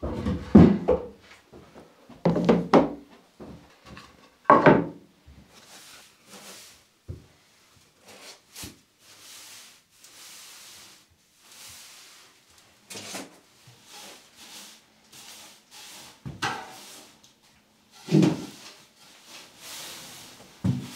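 Knocks and thuds of wooden things being handled and set down, with softer scraping or rubbing strokes in between.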